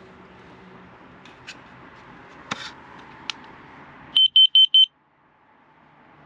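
Four quick, loud, high-pitched electronic beeps in a row, preceded by a few light clicks.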